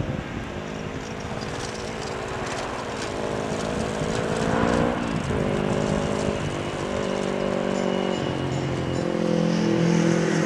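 Small motorcycle riding past along a field path, its engine note shifting pitch a couple of times as it changes gear and growing louder toward the end.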